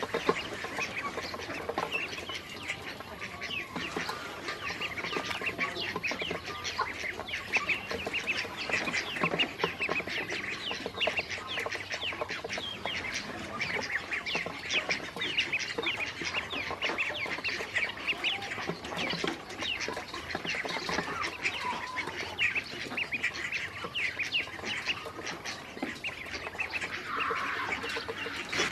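A group of ducklings peeping continuously, with many short, high calls overlapping one another.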